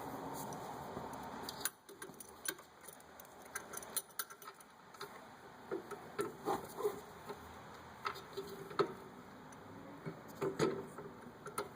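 A steady rushing noise for about the first second and a half that stops abruptly, then scattered light metallic clicks and clinks of tools and metal parts being handled, a few with a short ring.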